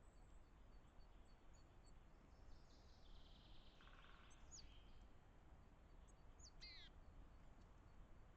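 Faint calls of small woodland birds over a low steady background noise: a short run of chirps about three seconds in, then a few quick downward-sliding notes, the clearest pair near the end.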